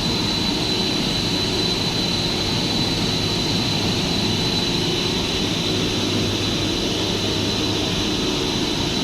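Cable-making machinery (payoff and pair-twisting lines) running steadily: a constant mechanical drone with a thin, steady high whine over a low hum.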